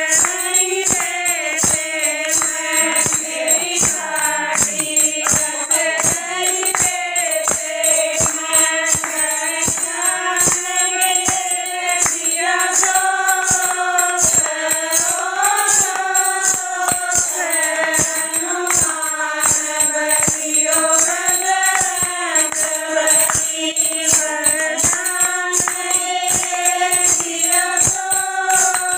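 A group of women singing a devotional bhajan in unison, in a folk style, kept on a steady beat by hand claps and small brass hand cymbals (manjira) that ring throughout.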